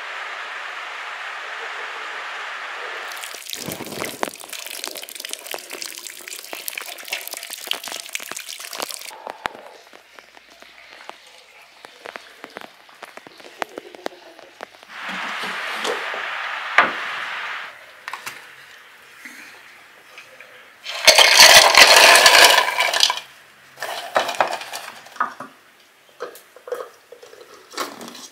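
Rain falling and dripping off the edge of a corrugated roof: a steady hiss at first, then a denser crackling patter. Later come short, louder rushes of noise, the loudest about two-thirds of the way through, and scattered light clicks near the end.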